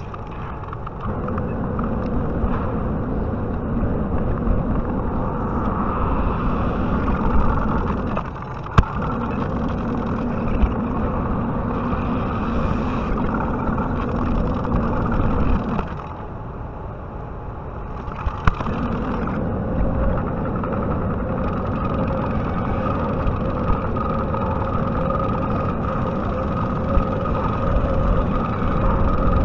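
JCB 55Z mini excavator's diesel engine running at working speed. It eases off briefly twice and picks up again, with two sharp knocks, about nine seconds in and again around eighteen seconds.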